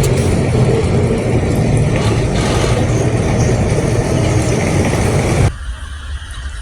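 Loud, steady vehicle noise with a low rumble that cuts off abruptly about five and a half seconds in.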